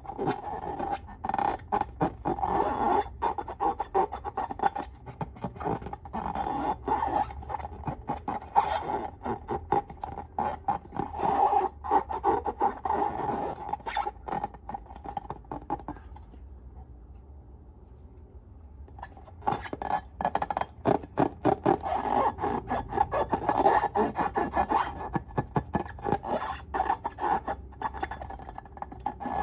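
Slime being worked by hand, a dense run of rapid sticky clicks and crackles. It dies down about fourteen seconds in and starts again about five seconds later.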